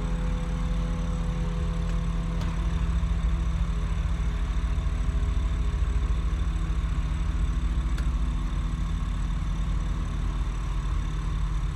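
Motor yacht's inboard engines idling steadily at low speed, a little louder in the middle.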